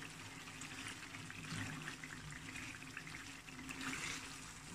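Chicken karahi frying in oil in the pan, a quiet steady sizzle with fine crackles. This is the final frying stage, after the oil has separated from the masala.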